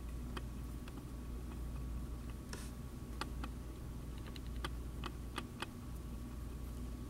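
Small, sharp clicks of glass seed beads knocking against each other and a steel crochet hook as beaded crochet stitches are worked, scattered and irregular, with a quick run of tiny clicks about four seconds in. A low steady hum sits underneath.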